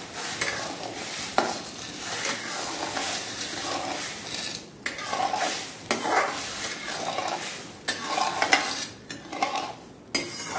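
Steel spoon stirring sugar and water in an aluminium kadai, scraping gritty undissolved sugar around the pan bottom in repeated strokes, with the odd sharp clink of spoon on metal.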